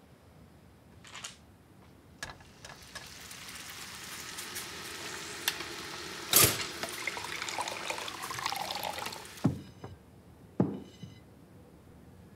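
Water running from a kitchen tap into a vessel for about six seconds, its pitch rising as the vessel fills. A sharp click about halfway through, as a toaster's lever is pressed down. Two short knocks near the end.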